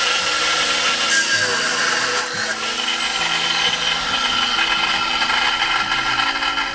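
Power tool cutting through a metal spoon handle: a steady high motor whine mixed with a harsh grinding rasp. The grinding is harshest between about one and two and a half seconds in, and the sound eases off near the end.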